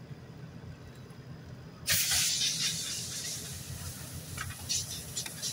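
A burning truck: a sudden loud hiss breaks out about two seconds in and slowly fades, with a few sharp crackles near the end, over a steady low rumble.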